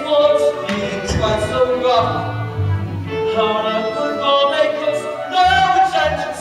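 Voices singing a musical-theatre number with sustained, held notes over instrumental accompaniment.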